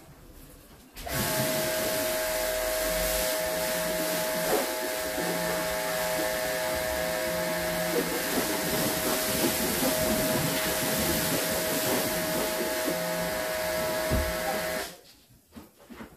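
Pressure washer running: a steady motor-and-pump tone under the hiss of the water jet. It starts abruptly about a second in and cuts off abruptly near the end, as the trigger is released.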